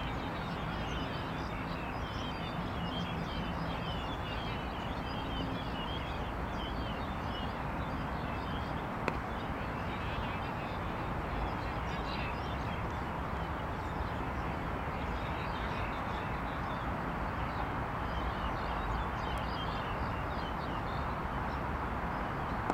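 Steady outdoor background noise with a low rumble and many faint, high chirps, and a single sharp knock about nine seconds in.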